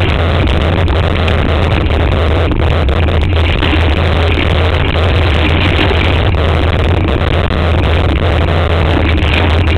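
Steady loud rumble of wind and vibration on a camera mounted on a mountain bike riding a dirt trail, with scattered small knocks and rattles from the bike going over bumps.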